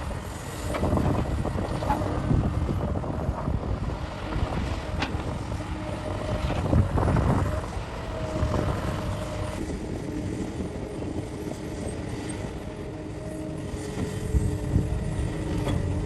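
Cat 6015B hydraulic mining excavator at work, its diesel engine running with a steady drone, with a few sharp knocks and clatter.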